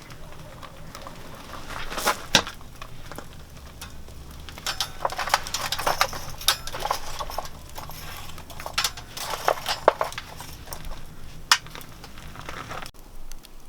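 Cooking utensils and cookware clinking and knocking in irregular sharp taps, over a faint low hum that cuts off abruptly near the end.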